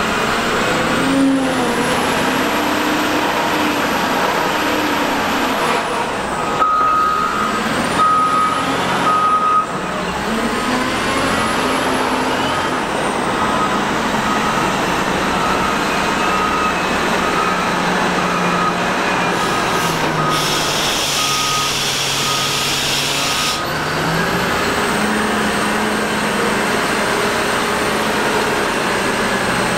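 Caterpillar 972M wheel loader's diesel engine running under load, its pitch rising and falling as it digs into sand and drives with a full bucket. A reversing alarm beeps repeatedly from about a quarter of the way in until about three quarters through, and a hiss of air lasts about three seconds near the end of the beeping.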